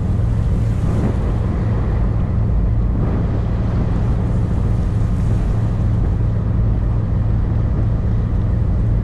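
Engine of a boat running steadily with a constant low drone, heard from on board.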